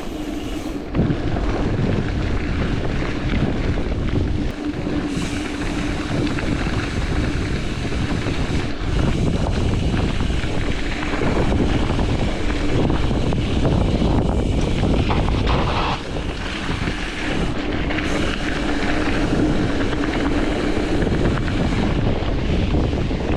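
Wind buffeting the microphone over the rumble of a mountain bike rolling fast along a rough trail, with a steady hum that comes and goes.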